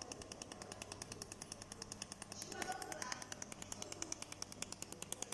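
Pulsed laser welder firing in automatic rotary welding: a steady train of sharp clicks, about eight a second, one for each laser pulse.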